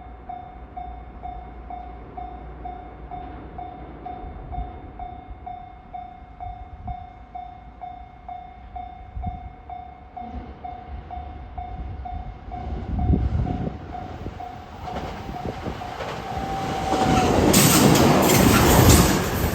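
Level crossing warning bell dinging in a steady repeated rhythm, about two strikes a second, while a train approaches with a growing rumble. Near the end the bell stops and the train passes the crossing at its loudest.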